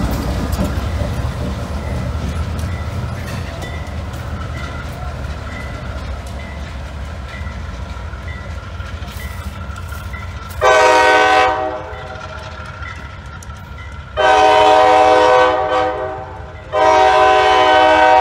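Diesel locomotives rumbling past close by, the engine and wheel noise slowly fading as they move off. About ten seconds in, a locomotive air horn sounds three times: a short blast, then two longer ones, the last still going at the end.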